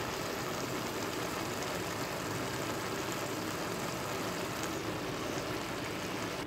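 Large pan of biryani rice and water boiling hard on a stove turned to high heat: a steady bubbling noise as the water cooks off into the rice.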